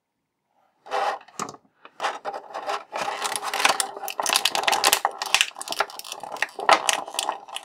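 Thin clear plastic blister packaging crackling and clicking as an action-figure backpack is pried out of its tray by hand, starting about a second in.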